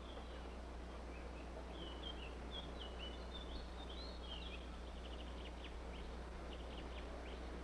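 Small birds chirping faintly, with quicker, short ticking notes in the second half, over the steady low hum and hiss of an old film soundtrack.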